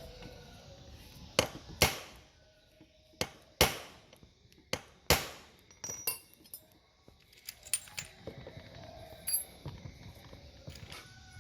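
Metal parts and tools of a starter motor being handled and struck, about ten sharp, irregular clinks and knocks, each ringing briefly.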